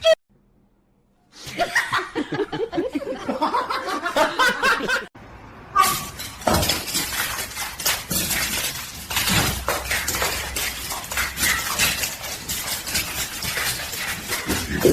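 A person laughing, then, after a cut, a longer stretch of busy noise with many sharp clicks and knocks.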